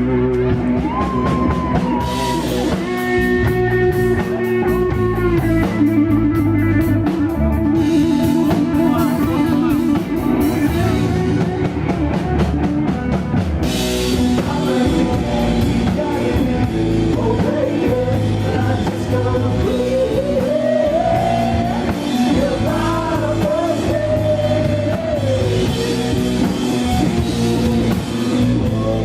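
Rock band playing: electric guitar and drum kit, with a gliding melody line over them.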